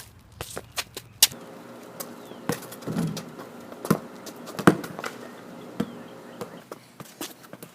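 Scattered sharp taps and knocks of a soccer ball being played and indoor soccer shoes stepping on a hard court, a louder strike a little before the middle. A faint steady hum runs underneath from about a second in.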